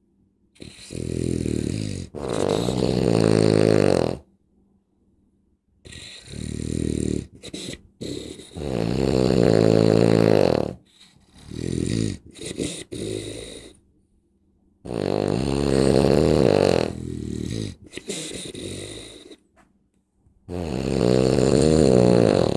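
Very loud snoring: a series of long snores, each a few seconds long, with a pitched buzzing tone that wavers up and down, and short quiet gaps between breaths.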